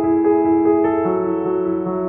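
Background piano music playing slow, sustained chords, changing chord about a second in.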